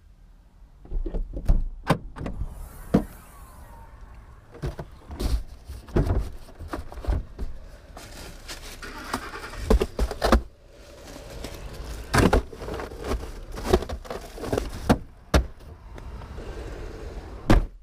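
Car sounds: a low rumble broken by many sharp knocks and clunks, and the sound cuts off abruptly at the end.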